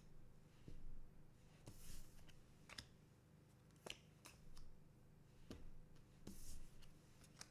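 Faint handling of trading cards: scattered soft clicks and a few brief slides of card against card as a pack is gone through.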